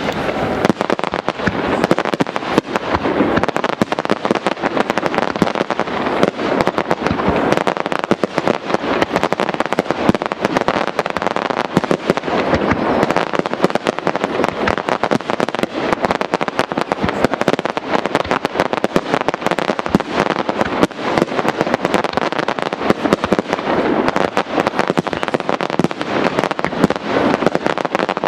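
Aerial fireworks display: shells bursting in a dense, unbroken barrage of bangs and crackle.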